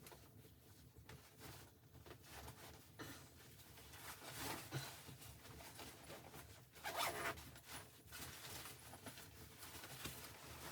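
Faint, irregular rustling and scraping, loudest about halfway through and again a little later.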